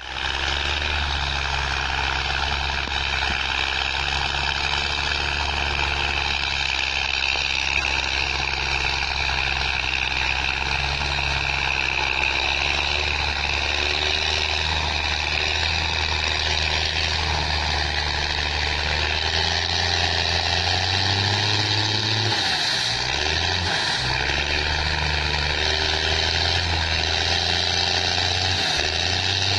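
New Holland TS6.125 diesel tractor engine running steadily under load while pulling a plough through the soil, its low drone wavering briefly about two-thirds of the way through.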